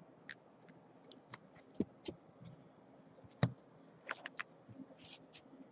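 Quiet handling of a foil trading-card pack and cards on a table: scattered light rustling and crinkling of the foil wrapper, with small clicks and two sharper taps, about two and three and a half seconds in.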